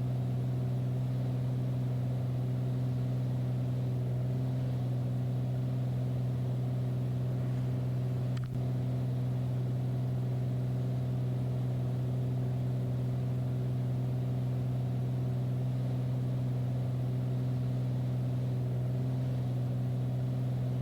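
Beechcraft Bonanza's single piston engine and propeller droning steadily in flight, a constant low hum heard in the cockpit. A brief click about eight and a half seconds in.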